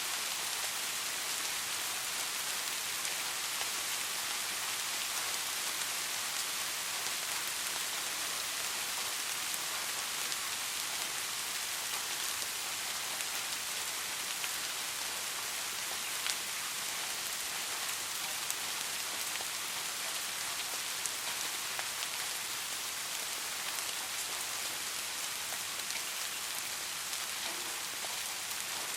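Steady soft rain falling on a surface, an even hiss with scattered individual drop taps.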